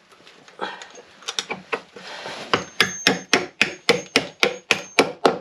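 Hammer blows on a threaded-bar bolt fixing a wooden sole beam to the boat's frame. A few light taps come first, then from about halfway a quick, even run of about a dozen sharp metal-on-metal strikes, roughly four a second, with a faint ring.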